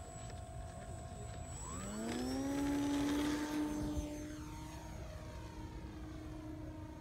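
Radio-controlled model airplane's motor and propeller throttling up for takeoff: a whine that rises in pitch about a second and a half in, is loudest around three seconds in, then holds steady as the plane climbs away.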